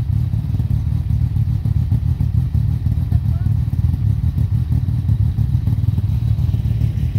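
ATV engines running at low revs: a steady, low-pitched, uneven engine drone.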